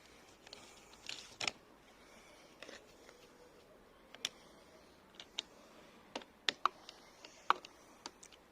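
Irregular sharp clicks and taps of hard plastic parts from a car wing mirror being handled and worked apart, about a dozen spread over the seconds, the loudest near the end.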